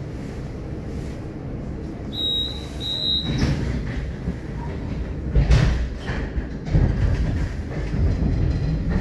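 Interior of a Moderus Alfa HF07DC tram: two short high beeps, then the tram gets under way. The low rumble of wheels on rail grows louder, with a couple of heavy clunks as it runs over rail joints.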